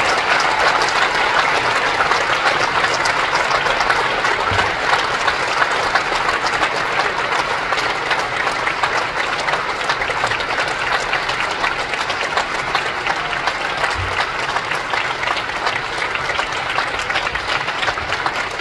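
Audience applauding steadily, a dense patter of clapping that eases slightly toward the end.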